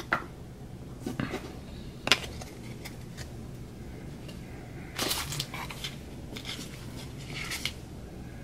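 A stack of cardboard trading cards handled between the fingers, one card slid behind the next: scattered short slides and taps, with a longer rustle about five seconds in.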